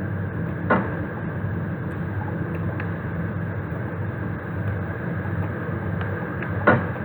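Chopped curry leaves sizzling steadily in hot oil in a kadhai with mustard, cumin, fennel, fenugreek and sesame seeds, with two short ticks, one near the start and one near the end.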